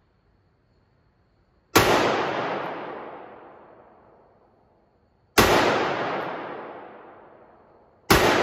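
Three shots from a Smith & Wesson Model 10-5 .38 Special revolver, fired slowly a few seconds apart, each followed by a long echo that fades away in the indoor range.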